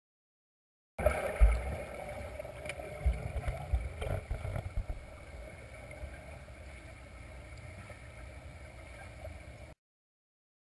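Underwater pool sound picked up through a GoPro's waterproof housing: a muffled rumble of water with irregular low thuds, heaviest in the first few seconds, from swimmers stroking and kicking overhead. It starts about a second in and cuts off near the end.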